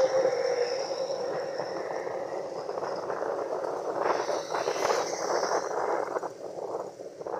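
Road and traffic noise heard from a motorcycle riding along a highway past a multi-axle lorry: a steady noisy din that eases a little near the end.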